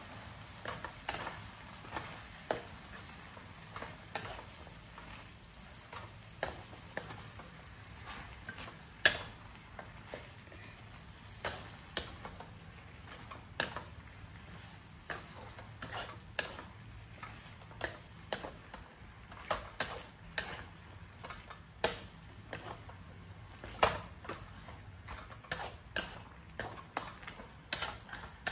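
Wooden spatula stirring greens and minced pork in a metal wok: irregular knocks and scrapes against the pan, about one or two a second, over a faint sizzle. One knock about nine seconds in is louder than the rest.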